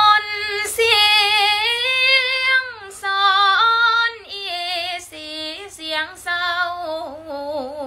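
A young woman singing a slow Thai song unaccompanied, holding long notes with vibrato and sliding between pitches, in several phrases separated by quick breaths.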